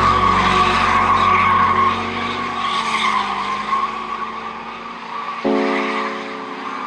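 Drift car sliding with a steady tyre squeal over its engine note, the engine fading away as the car moves off. Electronic music comes in about five and a half seconds in.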